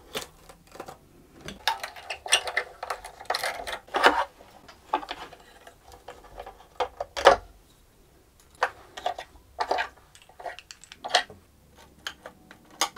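Irregular wooden clicks, knocks and rattles of an old violin being taken apart by hand: pegs turned in the pegbox, fittings removed and the detached neck worked loose from the body.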